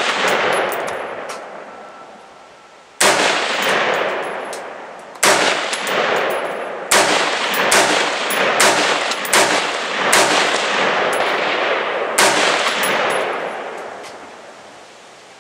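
Stag Arms Model 4 AR-15 rifle (5.56 mm/.223) firing eight single shots, each with a long echo trailing off. The shots come a couple of seconds apart at first, then five in quick succession less than a second apart, then one more.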